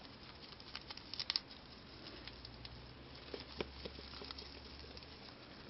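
Holland Lop rabbit chewing a fresh shiso (perilla) leaf: a fast run of small crisp crunching clicks, loudest in a quick burst about a second in and again a little past the middle.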